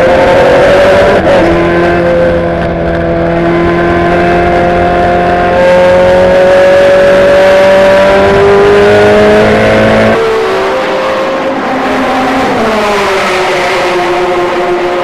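Ferrari GT race car's engine heard from inside the cockpit under full throttle, its pitch climbing steadily for about ten seconds. Then the level drops suddenly as the throttle is lifted, and the pitch falls in steps through downshifts a couple of seconds later before the engine settles at a lower, steadier note.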